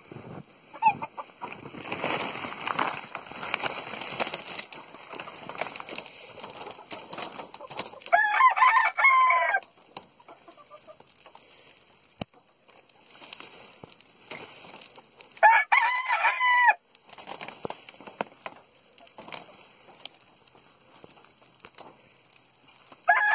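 Icelandic roosters crowing: three long crows, about seven seconds apart, the last just starting at the end. Hens cluck and chatter in between, busiest in the first few seconds.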